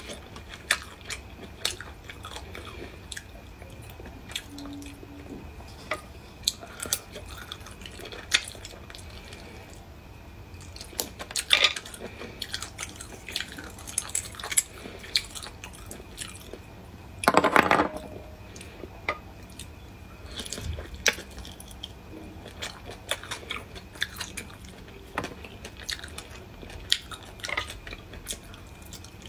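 Close-miked chewing of cooked whelk meat, with many short clicks and smacks as a fork picks the meat from the shells. One louder, longer burst of about half a second comes about two-thirds of the way through.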